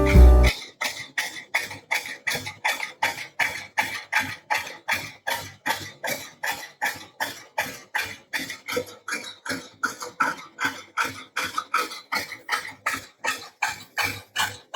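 Labrador Retriever panting fast in an even rhythm, about three quick breaths a second: normal panting from exertion after vigorous play. Music cuts off about half a second in, before the panting.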